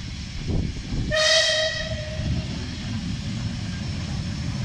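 Bulleid West Country class steam locomotive 34092 City of Wells sounding one short whistle blast about a second in, over the steady low rumble of the engine running tender-first past.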